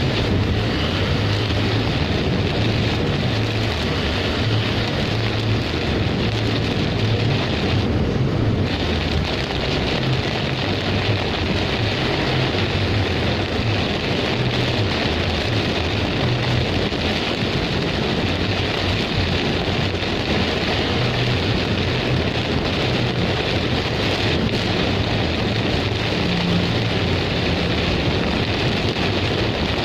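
Heavy rainstorm: a steady downpour with a low rumble underneath. The rain noise thins briefly about eight seconds in.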